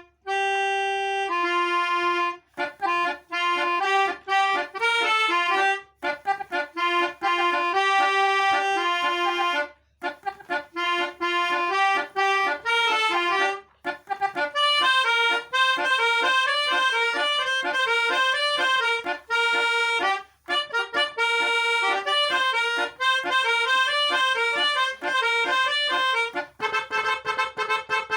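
A Basuri telolet bus horn playing a fast, lively tune in its reedy melodica-like 'pianika' voice, a quick melody over a held lower note. It breaks off briefly every few seconds between phrases.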